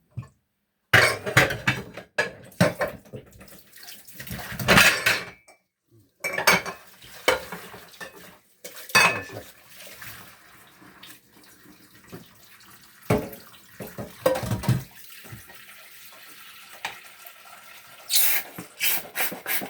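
Dishes, pots and cutlery clattering and clinking in a sink while washing up by hand, with a tap running.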